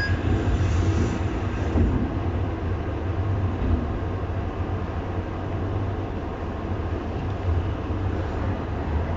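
Diesel railcar's engine idling at a standstill with a steady low hum, heard from inside the car just before it pulls away.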